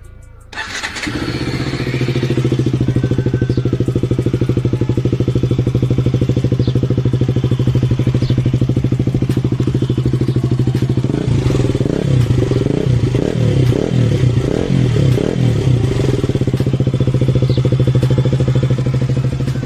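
KTM RC 200's single-cylinder four-stroke engine starting up about half a second in and idling through an Akrapovic carbon slip-on exhaust with its dB killer removed, so the exhaust runs open and loud. In the second half it is blipped several times on the throttle, the note swinging up and down, before it settles back to idle.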